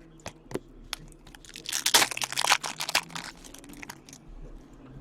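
Foil wrapper of a hockey trading-card pack crinkling as it is torn open, a dense crackly burst about two seconds in, with light clicks and ticks of cards being handled before and after.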